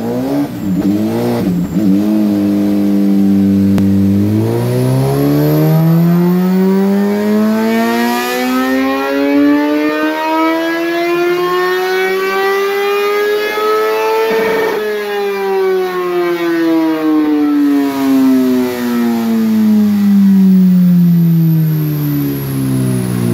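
Suzuki GSX-R1000's inline-four engine running on a chassis dyno. It gets a few quick throttle blips, holds steady briefly, then makes one full-throttle pull with the note rising smoothly for about ten seconds. After that the note falls steadily as the run winds down.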